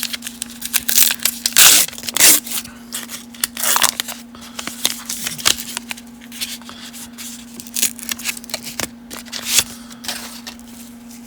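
Baseball card pack wrapper crinkling and tearing open, loudest about two seconds in, then a run of quick dry rustles and flicks as the cards are handled and sorted.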